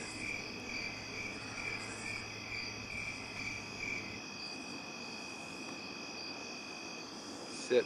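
Night-time chorus of crickets and other insects: several overlapping steady high trills, one of them pulsing about twice a second until about four seconds in, then holding steady.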